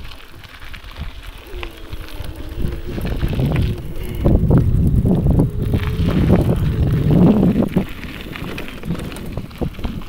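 Bicycle being ridden along a path: the tyres roll with an uneven low rumble, and wind buffets the microphone.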